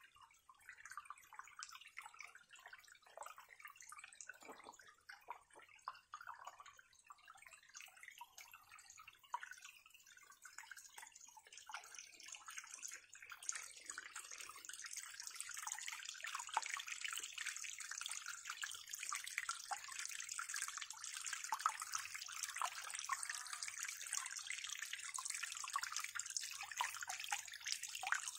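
Small cascade of water trickling and dripping over rocks. Scattered drips and splashes give way about halfway through to a fuller, steadier splashing.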